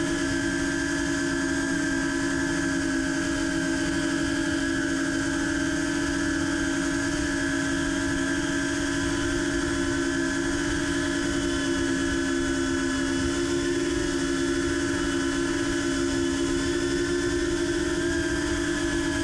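FPV quadcopter's brushless motors whining at a steady, slightly wavering pitch, with wind rushing over the onboard GoPro Hero 5 Session's microphone as the quad flies low and fast.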